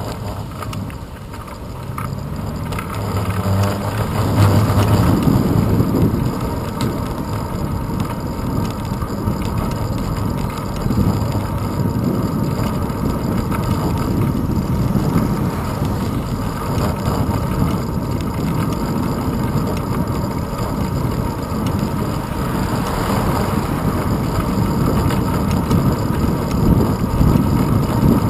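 Wind buffeting and road rumble on a handlebar-mounted camera's microphone as a bicycle rides along a road, growing louder about four seconds in as it picks up speed. Near the start a car engine is heard, rising in pitch as it pulls away.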